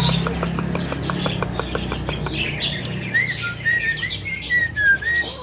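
Javan myna (jalak kebo) calling: a quick run of evenly spaced clicking notes, then a string of short whistled notes that rise and fall.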